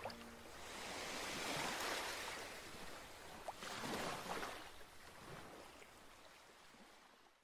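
A soft rushing wash of noise that swells and ebbs twice, then fades out near the end.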